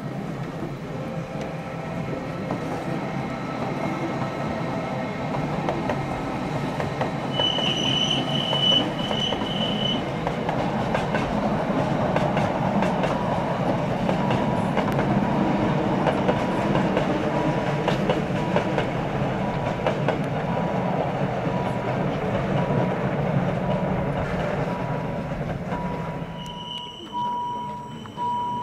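Rhaetian Railway ABe 8/12 Allegra electric train running along curving mountain track. Its wheels rumble and click over the rails, swelling as it passes. There is a high wheel squeal on the curve for a couple of seconds about a third of the way in, and near the end the sound thins to a thinner, pulsing squeal.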